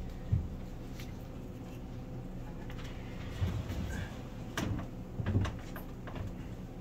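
A handful of dull wooden knocks and thumps as a large wooden-framed cork artwork is shifted and bumped against the wall and bench while being hung. The loudest thumps come just after the start and about five seconds in.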